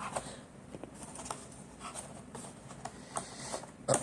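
Fireworks packaging handled by hand: scattered small clicks and rustles as the boxes are moved, with a louder knock near the end.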